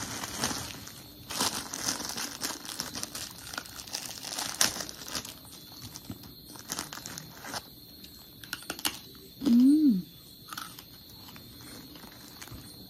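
Clear plastic snack bag crinkling and rustling as it is handled and pulled open, busiest in the first few seconds. About two-thirds of the way in comes a short hummed voice sound that rises and falls in pitch.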